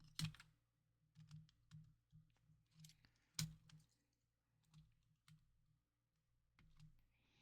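Faint, scattered clicks and taps of small console parts being handled during reassembly, with two sharper clicks: one just after the start and one about three and a half seconds in.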